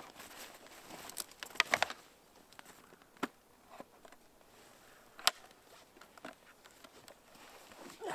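Rustling of heavy winter clothing as mitts are handled and a snowmobile helmet is unfastened and lifted off, with scattered sharp clicks and taps; the loudest is a cluster about one and a half seconds in, and single clicks follow around three and five seconds in.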